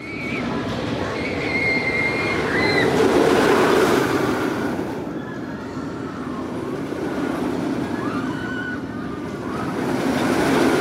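Joker's Jinx steel roller coaster train running along its track overhead: a loud rumble with high squeals over it, swelling about three seconds in, easing off, then swelling again near the end.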